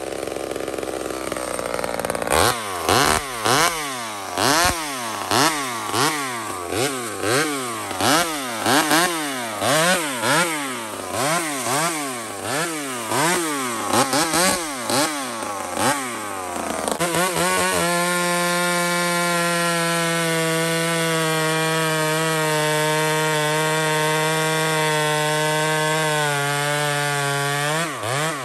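Homelite XL76 two-stroke chainsaw idling, then blipped hard over and over, a bit more than once a second, for about fourteen seconds. It is then held at full throttle for about ten seconds while it bucks a log, and the engine note drops near the end as the cut finishes.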